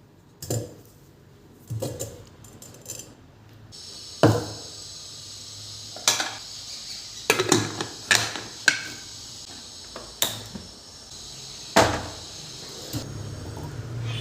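Kitchen clatter: sharp knocks and clinks of utensils and dishes being handled and set down, a dozen or so spread unevenly, over a steady hiss that starts about four seconds in.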